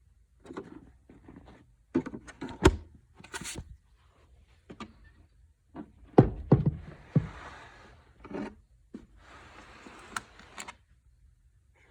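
A series of irregular knocks, clicks and thunks, the loudest about a third of the way in and again around the middle, with two short stretches of faint rustling.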